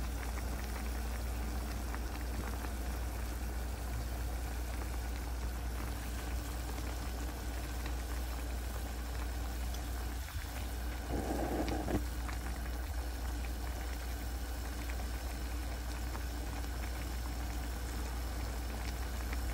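Pot of turnip greens boiling on a stovetop: steady bubbling over a constant low hum, with one brief louder noise about eleven seconds in.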